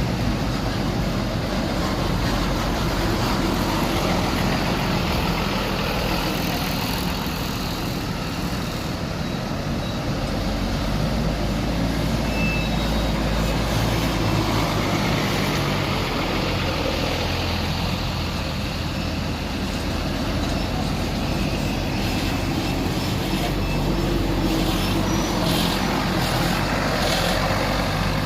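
A large tour bus's diesel engine running steadily close by, with road noise; the low engine note shifts about ten seconds in.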